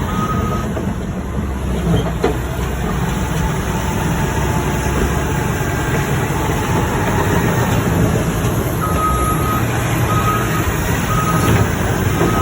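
Heavy earthmoving machine's diesel engine running steadily, with a backup alarm beeping about once a second briefly at the start and again from about nine seconds in.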